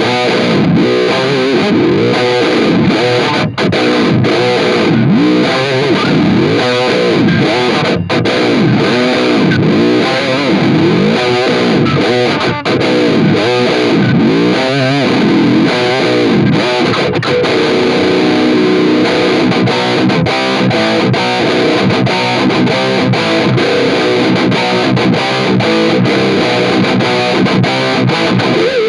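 Distorted electric guitar through a DigiTech Whammy 5 pitch-shifter pedal in drop-tune mode, set four semitones down. For the first half or so the pitch swoops down and back up over and over as the treadle is rocked; a little past halfway it settles into steady picked chords at a fixed pitch.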